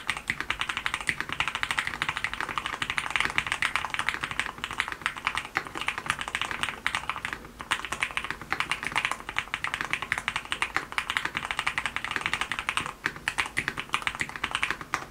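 Fast continuous typing on a Geon F1-8X mechanical keyboard with lubed Sea Salt switches: dense key clacks with a slightly creamy, pebble-like sound, broken by a few brief pauses.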